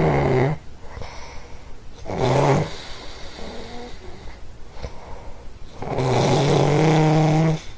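A sleeping dog snoring: a short buzzy snore about two seconds in, a faint one around the middle, and a long drawn-out snore from about six seconds in.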